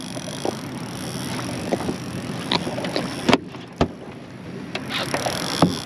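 Steady wind and water noise on a small fishing boat, broken by a few sharp clicks and knocks, the loudest a little before the four-second mark.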